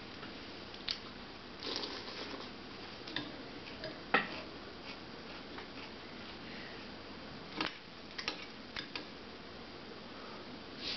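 Metal spoon clinking and scraping against a ceramic cereal bowl in scattered single clicks, the loudest about four seconds in, with faint chewing of cereal between.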